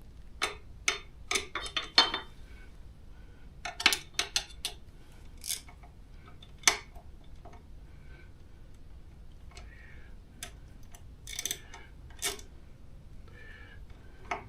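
Irregular metallic clicks and clinks of a socket wrench and bolt hardware, as a bolt and its nut are fitted and tightened.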